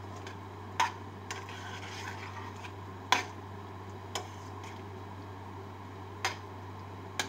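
A utensil knocking against a stainless-steel cooking pot, about six sharp clicks spaced unevenly a second or two apart, over a steady low hum.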